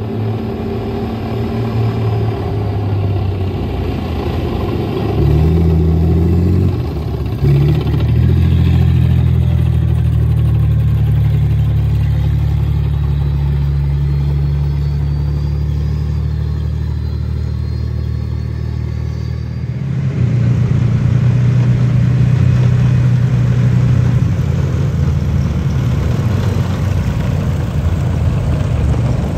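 Tracked armoured vehicles, including a Challenger 2 main battle tank, driving past on a road: heavy diesel engines running, with the revs climbing about five seconds in and the sound growing louder and rougher about twenty seconds in.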